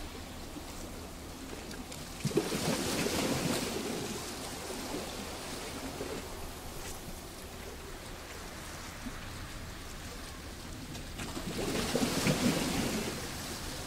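Sea waves breaking on a rocky beach: two waves crash, one with a sudden hit about two seconds in and another building and falling away near the end, with a steady wash of water over the stones between them.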